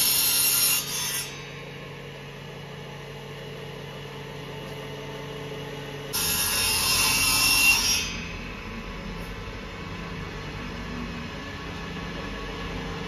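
Table saw ripping a strip of wood: a loud cut ends about a second in, the blade then spins freely with a steady motor hum, and a second cut runs from about six to eight seconds in.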